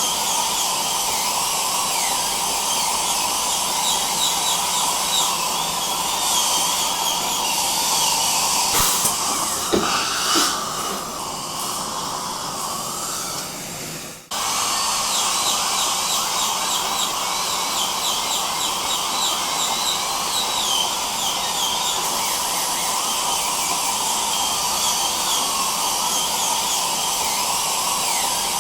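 Dental drill whining over the steady hiss of suction, its pitch wavering again and again. About fourteen seconds in, the sound fades, cuts out sharply for an instant, then starts again.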